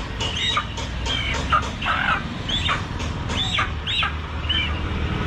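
Live white chicken squawking in short, repeated calls, two or three a second, as it is held upside down by its legs.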